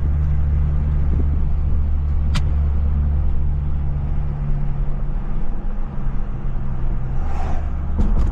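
Straight-piped BMW 540 exhaust droning steadily while driving, heard inside the cabin with a window open. The drone eases about four seconds in and comes back stronger near the end, with one sharp click about two and a half seconds in.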